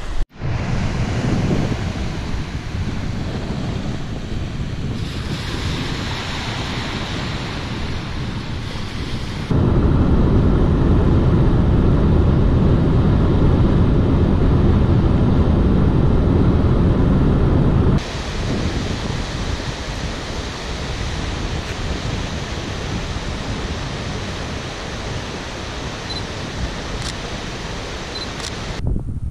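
Waves washing onto a sand beach with wind on the microphone. About ten seconds in, this changes to a louder, steady low road rumble heard inside a moving car. Near twenty seconds it changes again to a steadier hiss of wind on the microphone over a rushing stream.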